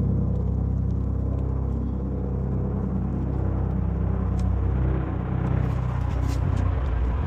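An engine running steadily, a low even hum. Its low tones grow weaker near the end.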